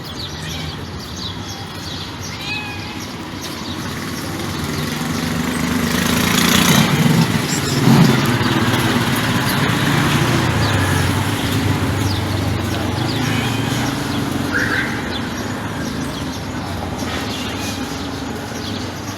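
A motor vehicle passing: its engine rumble and road noise swell to a peak about seven or eight seconds in, then slowly fade. A few short, faint chirps sound over it.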